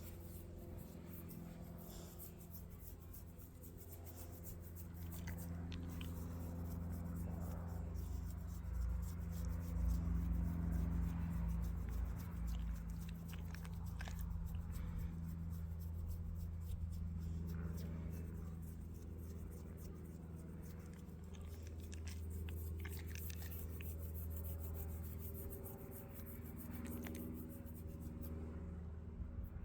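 A rottweiler chewing and biting, with a few faint clicks, over a low steady hum that grows louder and then fades.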